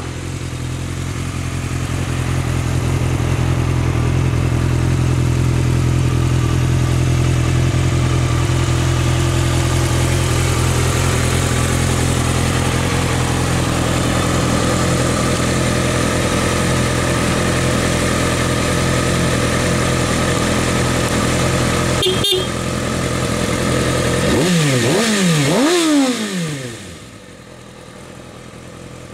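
Kawasaki ZX-6R inline-four idling steadily through a Delkevic slip-on silencer. After a sharp click, it is revved in a few quick throttle blips that rise and fall in pitch, and then the sound drops away near the end.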